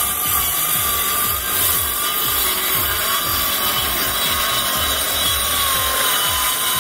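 Circular saw cutting through a sheet of plywood, its motor whining steadily under load while the blade rips through the wood without a break.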